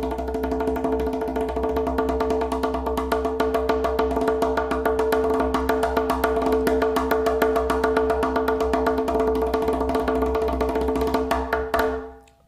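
Cloche (rim) strokes played with the fingertips on a Haitian hand drum: a rapid, even stream of sharp strokes over the ringing of the drum, stopping suddenly just before the end.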